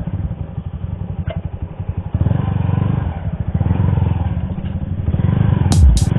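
Motorcycle engine running with a fast, even low pulse, getting louder about two seconds in as it picks up speed under the load of pushing a second bike. An electronic music beat comes in near the end.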